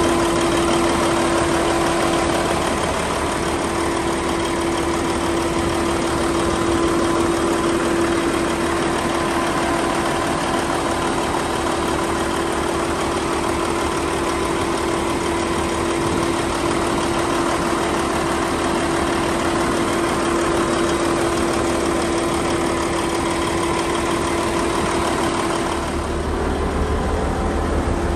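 Volvo A40E articulated dump truck's diesel engine idling steadily, heard close up in the open engine bay, with a constant hum held over the engine note.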